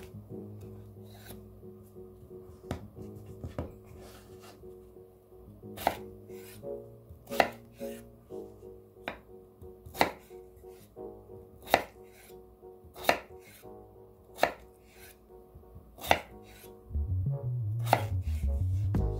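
Chef's knife chopping through a peeled potato and knocking on a wooden cutting board, one sharp knock every second or two. Soft background music plays underneath and gets louder near the end.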